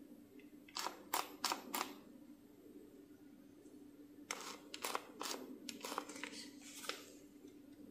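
Sharp clicks and knocks of hard objects being handled: four in quick succession about a second in, then a longer run of them from about four to seven seconds in, over a steady low hum.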